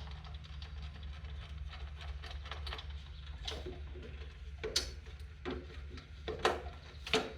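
Scattered light clicks and a few sharper metallic knocks, about five, six and a half and seven seconds in, from hand tools unscrewing and lifting off a riding mower's deck pulley guard. A steady low hum runs underneath.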